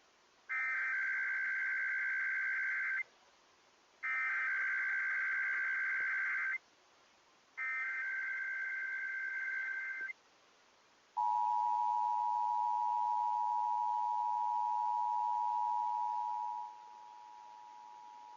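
Emergency Alert System SAME header for a Required Weekly Test: three bursts of warbling digital data tones, each about two and a half seconds long with about a second between. The two-tone EAS attention signal follows and drops sharply in level near the end.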